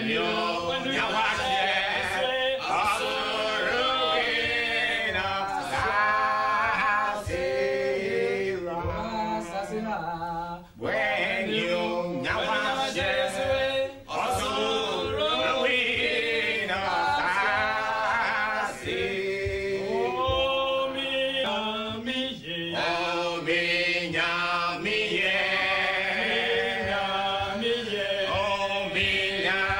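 A small group of men singing a cappella, several voices together in a lively song.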